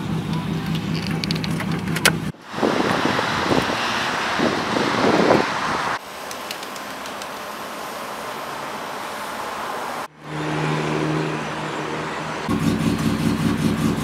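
Mercedes 190E's inline-six engine running, heard from inside the car, with its loud aftermarket exhaust. The sound cuts abruptly a few times: a stretch of rushing noise in the middle, then the engine again near the end.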